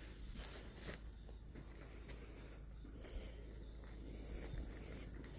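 Crickets trilling steadily, one unbroken high-pitched tone.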